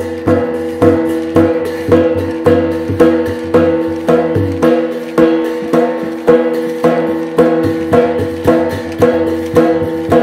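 Traditional Shan (Tai Yai) percussion music for the Tua To dance: drum and other percussion struck on a steady, even beat of about two strokes a second, with ringing tones held between the strikes.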